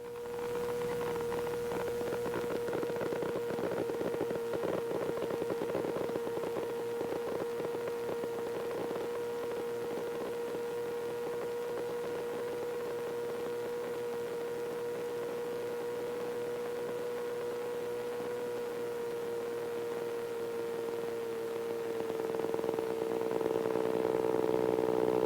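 KR-2S homebuilt aircraft's Corvair-conversion engine and propeller, a steady droning tone heard through the intercom audio feed. Near the end the pitch dips slightly and the drone grows louder.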